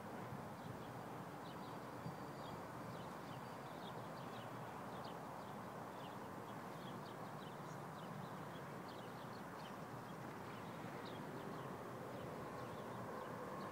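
Faint steady outdoor background noise with many short, high chirps of small birds scattered throughout.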